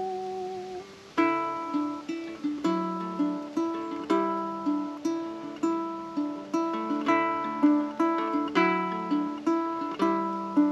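Background song: the tail of a held sung note fades out about a second in, then a plucked-string instrumental break picks a steady pattern of notes, about two a second.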